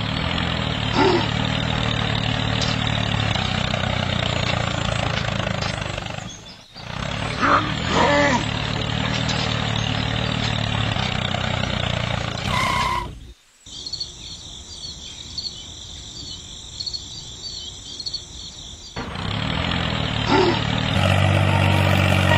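Tractor engine running steadily, cutting out briefly twice. In the middle stretch it gives way to a quieter, high, rapidly repeating sound, and the engine comes back near the end.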